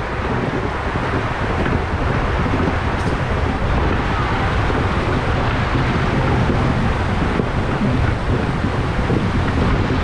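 Rushing water and the rumble of an inflatable ride tube sliding down an enclosed water-slide flume: a steady loud rushing noise that builds over the first few seconds.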